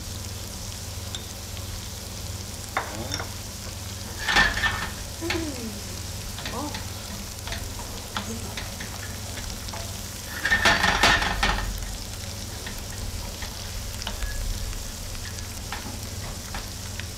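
Shredded cabbage and onions cooking in butter and bouillon in a copper sauté pan, sizzling steadily while a wooden spoon stirs and scrapes the pan. The stirring is loudest briefly about four seconds in and again for about a second around eleven seconds.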